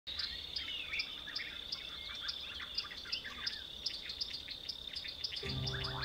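Wild birds chirping in short calls over a steady high whine with about three ticks a second. Music with sustained chords and a low bass note comes in near the end.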